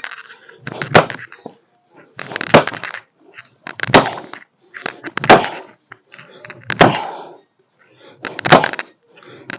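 Steel axe chopping firewood: six sharp strikes on the wood, about a second and a half apart.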